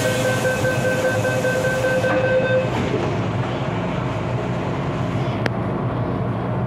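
Inside an MTR Kwun Tong Line M-Train car while it runs: a steady rumble, with a steady tone and hiss over it that stop about two and a half seconds in. A single sharp click comes about five and a half seconds in.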